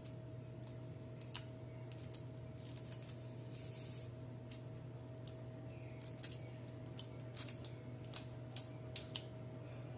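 Scattered light clicks of a pen tapping on a hard surface while diamond painting. The clicks are sparse at first and come more often from about six seconds in, over a steady low hum.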